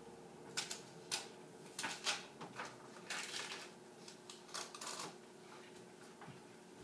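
Irregular short taps, scrapes and rustles from things being handled and moved on top of a kitchen cabinet. They come in a loose cluster during the first five seconds.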